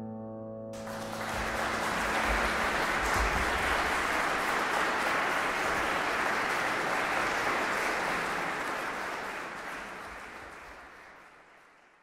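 The last chord of a Kawai grand piano ringing away, then audience applause breaking out just under a second in, holding steady and fading out near the end.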